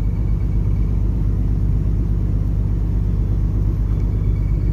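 Steady low rumble and hum of a ship's engines and machinery, with no change.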